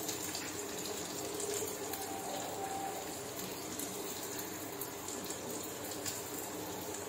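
Chopped onion and cashews frying in hot oil in a kadai, just added to the pan: a steady sizzle with scattered small crackles.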